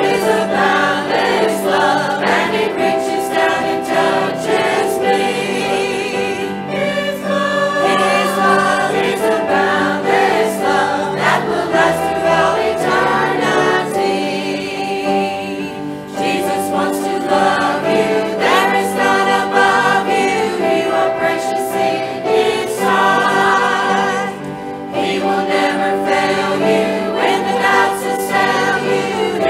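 Church choir singing.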